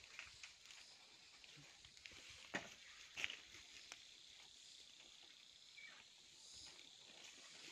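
Faint forest ambience: a steady high insect hum, broken by a few soft clicks and knocks, the loudest about two and a half and three seconds in.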